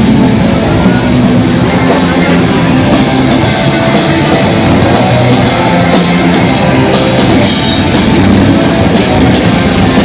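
Loud rock music with drums and guitar, playing steadily throughout.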